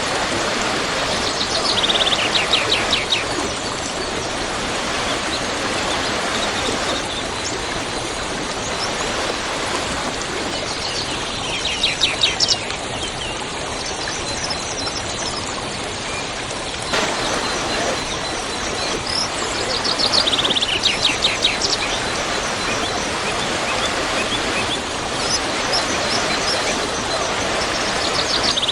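Waterfall rushing steadily, with a songbird singing a short, fast, descending trill over it, repeated about every nine seconds.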